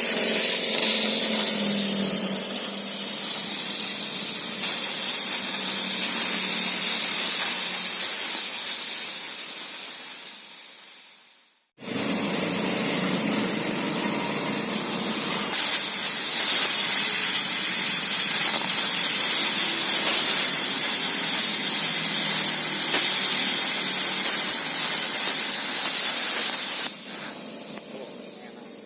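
Redbo Cut 40 plasma cutter cutting metal plate: a loud, steady hiss of the arc and its compressed air. It fades out and stops about halfway, starts again abruptly, then drops and dies away near the end.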